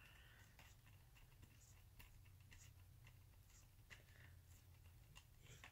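Near silence: faint ticks and light scratching of a small screwdriver turning a screw into a laptop's bottom case, over a low steady hum.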